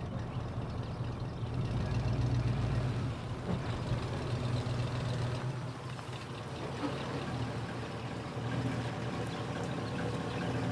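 A vehicle engine running steadily, a low drone that swells slightly a couple of seconds in and eases off around the middle.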